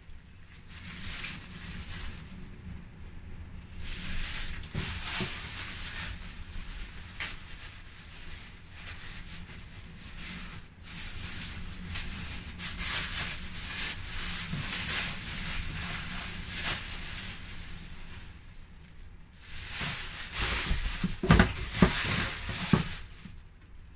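Thin plastic carrier bags rustling and crinkling in irregular spells as groceries are handled and pulled out. Near the end come a few sharp knocks as tin cans are lifted out of a bag.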